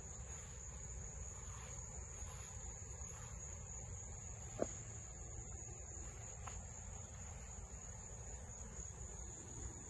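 Steady high-pitched trilling of insects in the garden, with one short sharp click about four and a half seconds in.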